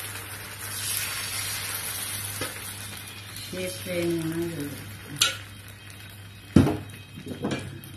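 Thin neer dosa batter of rice and coconut sizzling on a hot tawa, strongest in the first few seconds and then dying down. A sharp click about five seconds in and a louder knock a second and a half later.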